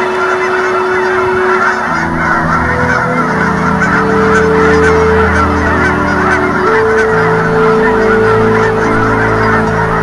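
A large flock of Canada geese honking all at once, a dense, continuous chorus of overlapping calls.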